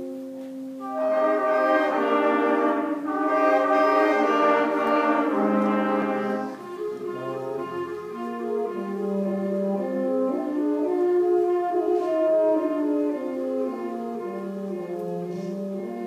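High school concert band playing: the full band swells loud about a second in and holds for several seconds, then drops back to softer sustained chords under a moving melody.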